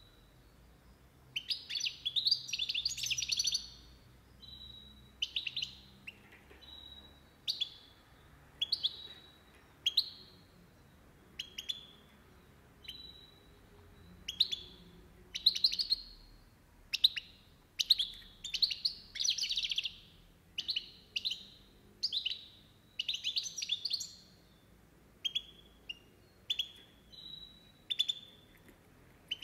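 Caged European goldfinch calling and singing: short high twittering notes and phrases about one a second, with a few longer, louder bursts of twittering.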